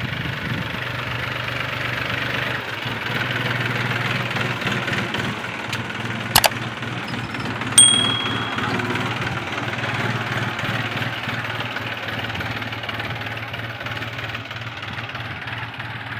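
Tractor's diesel engine running steadily under load as it pulls a tine cultivator through the soil. About halfway through, a sharp click and then a short bell-like ding from a subscribe-button sound effect.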